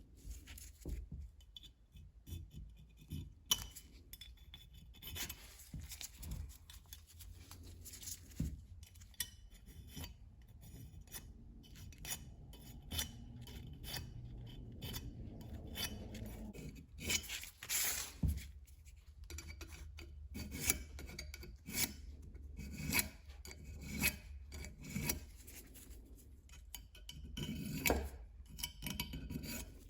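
Irregular hand rubbing and scraping strokes on the brass parts of an Allpax gasket cutter, a quick scratchy stroke every second or so.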